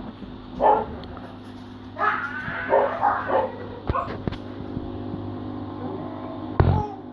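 Steady low electrical buzz, with a dog yipping and whining a few times in the first half and a sharp knock near the end.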